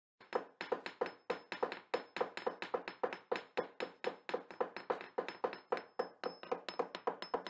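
A steady run of sharp knocking taps, about three a second, each with a short ringing tone. A faint high whine sits behind them.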